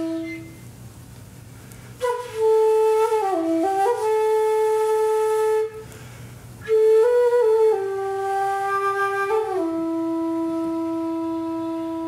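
End-blown bamboo flute playing a slow melody: a held low note that fades about half a second in, a pause, then two phrases of stepping and sliding notes, ending on a long low held note.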